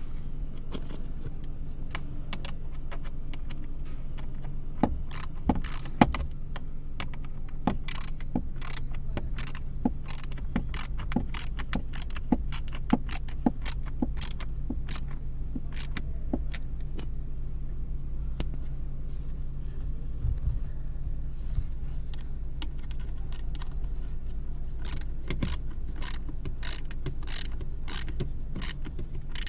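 Car AC blower motor running with a steady hum and irregular sharp clicking and ticking, the abnormal noise from the blower. The clicks come fastest in the middle and again near the end.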